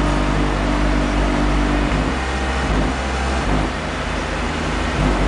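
Car-audio subwoofers playing a loud, sustained bass tone in a voice-coil meltdown run, meant to push the coils until they overheat; the sound-level meter reads about 115 dB. The bass is distorted and buzzing, and its pitch shifts a couple of times between about two and five seconds in.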